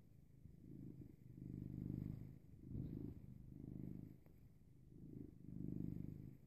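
Domestic cat purring right at the microphone, the purr swelling and fading with each breath about once a second.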